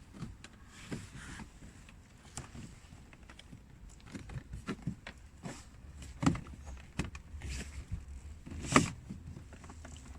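Scattered clicks and knocks of a leather-wrapped interior door-handle trim cover being pressed and worked into its slots on a Volkswagen Tiguan door, the two loudest about six and nine seconds in.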